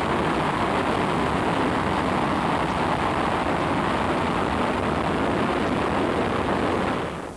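Aerospike rocket engine hot-firing: a loud, steady rushing noise that fades out near the end.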